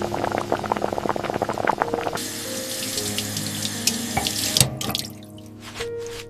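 Liquid bubbling with dense crackles, then a steady rush of running or pouring water starting about two seconds in and stopping sharply about two and a half seconds later.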